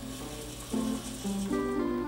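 Gear whir with a ratcheting rasp from the robot arm's joint servos as the arm swings to a new pose, lasting about a second and a half, under background music with plucked notes.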